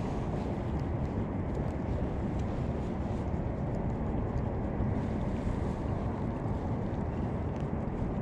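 Wind buffeting the microphone: a steady low rumble with no clear pitch, and a few faint light ticks above it.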